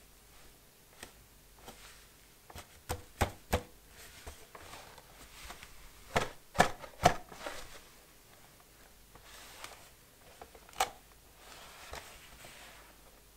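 Cardboard retail box with a clear plastic window being handled in leather-gloved hands: soft rustling broken by sharp taps and knocks. They come in a cluster a few seconds in, a louder cluster around the middle, and one more near the end.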